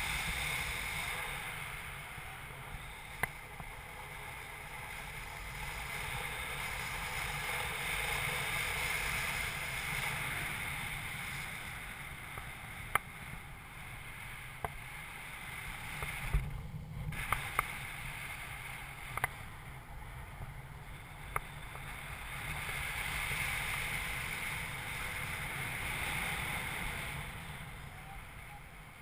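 Rushing airflow over a paraglider pilot's helmet-mounted camera in flight, a steady whoosh that swells and fades every few seconds, with scattered sharp clicks.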